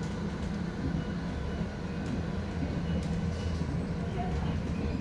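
Foton BJ5120 trolleybus running, heard from inside the passenger cabin: a steady low rumble with an electric hum and a few light rattles.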